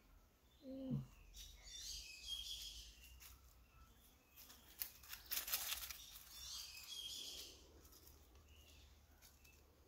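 Faint bird chirps and calls, with a short call that drops steeply in pitch about a second in. There is a brief rustle about halfway through.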